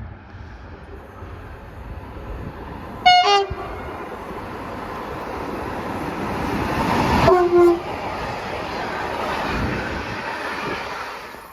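Swedish train passing, its rumble building and then fading. Its horn sounds two short blasts, about three seconds in and about seven seconds in, each a higher note dropping to a lower one.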